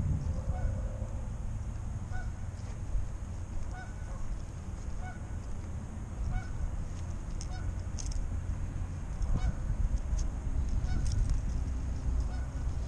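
Geese honking over and over at an even pace, faint under wind rumbling on the microphone. A few small sharp ticks come in the middle.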